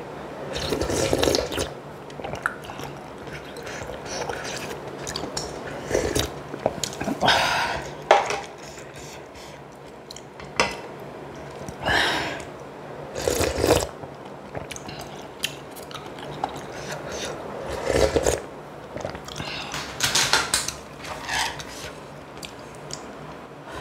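Eating sounds from a bowl of clam kalguksu: repeated slurps of noodles and broth, each about a second long, with chewing and light clinks of utensils against the bowl in between.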